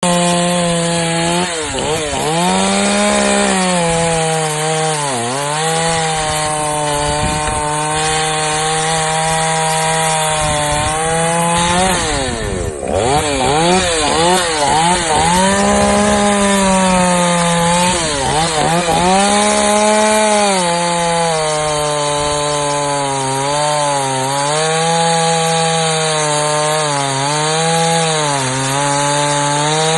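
Two-stroke gasoline chainsaw, a Ducati with a 20-inch bar, running at high revs. Its pitch repeatedly sags and recovers, with the deepest dip about twelve seconds in.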